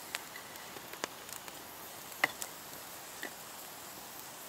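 Wood campfire crackling: a handful of sharp pops and snaps at irregular intervals, the loudest a little past two seconds in.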